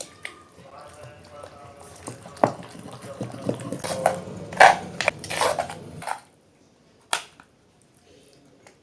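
Kitchen utensils clinking and knocking against dishes, with a run of clatter for a few seconds and then one sharp knock about seven seconds in.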